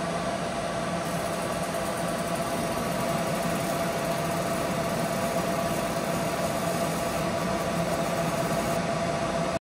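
Galvo laser engraver running with a steady fan hum and a held tone. From about a second in until near the end, a high hiss joins it as the laser burns into the wooden workpiece.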